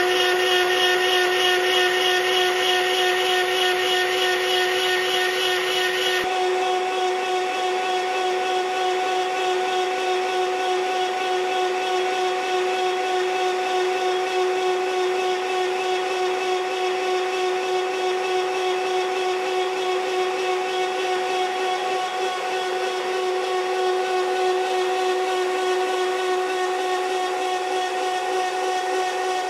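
Sunbeam 1000hp's rebuilt rear V12 aero engine being spun over on its electric starter with the spark plugs out, a steady, even whine that holds its pitch throughout. This is the cranking used to build oil pressure and prime the water pipes before a start is tried.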